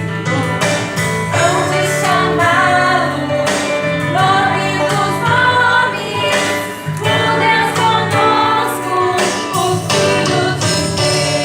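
Voices, mostly female, singing a song in a choir with instrumental accompaniment.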